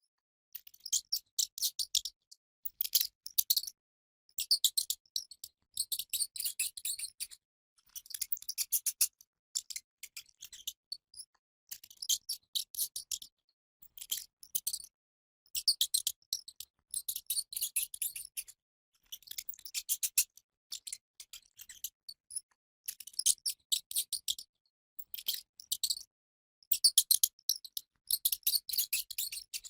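Rat noises: bouts of rapid, high-pitched chittering, each a second or two long, separated by short silences.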